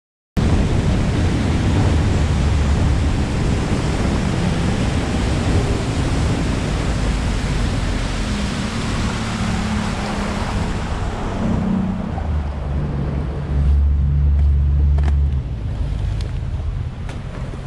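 Boat motor running under way, with a loud rush of wind and water over it; the rushing eases about eleven seconds in, the engine note shifts, and it swells briefly a few seconds later, with a few light knocks near the end.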